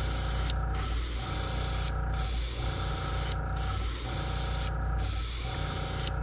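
Gravity-feed airbrush spraying paint onto a crankbait lure in short passes: a steady hiss that breaks off briefly four times, about every second and a half, as the trigger is let go between passes. A steady low hum runs underneath.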